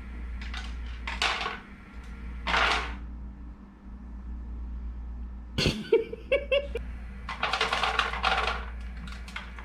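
Automatic pet feeder dispensing dry kibble: bursts of pieces clattering into the tray, the longest near the end, with a sharp click a little past the middle.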